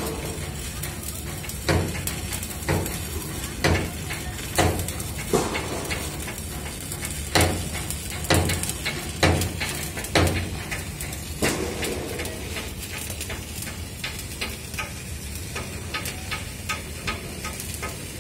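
Arc welding on a steel fire-line pipe: a steady crackling sizzle. Sharp knocks come about once a second for the first ten seconds or so, with lighter clicks after.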